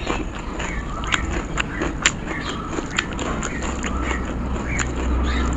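Fingers squishing and mixing water-soaked rice with dal on a steel plate, with many short wet clicks and smacks, along with close-up chewing and lip sounds, over a low steady hum.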